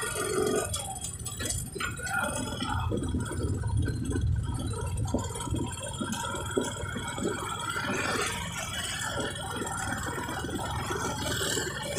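Ride noise of a moving vehicle heard from inside it: a steady low rumble with frequent small rattles and knocks.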